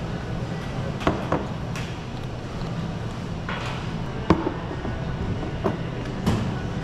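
Espresso-bar work sounds: a paper cup pulled from a stack and set down, and a steel milk pitcher handled, giving scattered clicks and knocks, the sharpest about four seconds in, with a brief rustle just before it. A steady low machine hum runs underneath.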